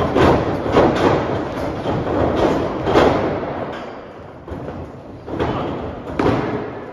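Wrestlers' bodies hitting the wrestling ring's canvas: a string of heavy thuds, closest together in the first three seconds, then quieter, with two more near the end.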